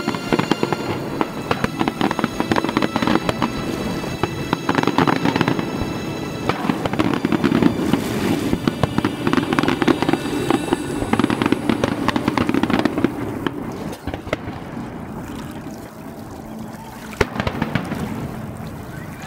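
Fireworks display: a dense run of bangs and crackling from aerial shells, thinning out over the last few seconds, with one sharp bang near the end.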